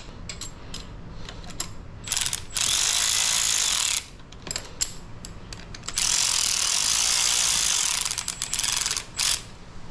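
Ratchet wrench clicking as the handlebar clamp bolts are snugged down. There are two longer runs of rapid ratcheting, one about two and a half seconds in and one about six seconds in, with scattered clicks of the tool and bolts between them.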